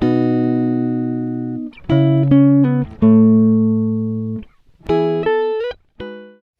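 Intro music: a guitar playing chords that ring out and fade, struck again every second or two, with short runs of plucked single notes between.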